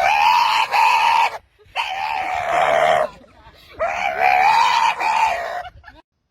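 A dog letting out three long, loud, high-pitched screaming cries, each lasting over a second with short gaps between them.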